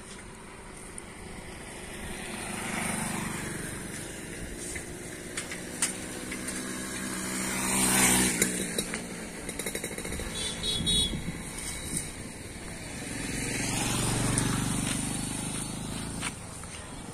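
Road traffic passing three times, rising and fading each time. The loudest pass, about halfway, is a motorcycle going by close.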